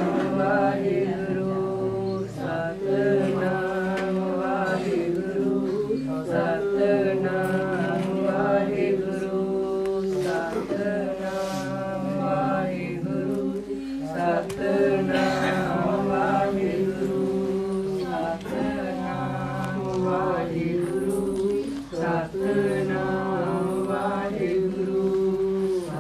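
Men singing a Sikh devotional hymn (shabad kirtan) in slow, drawn-out phrases with sustained musical accompaniment.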